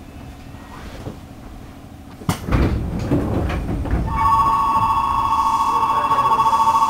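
Passenger doors of a JR East 211 series train sliding shut with a thud a little over two seconds in, followed by a second or so of rattling. A steady high two-pitched tone then starts about four seconds in and keeps going.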